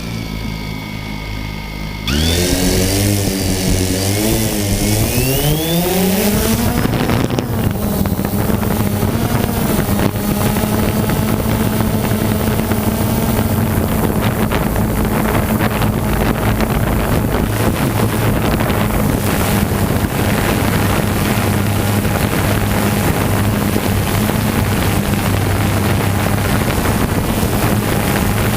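An engine jumps in level about two seconds in and revs up with a wavering, rising pitch. From about six seconds on it runs at a steady high power.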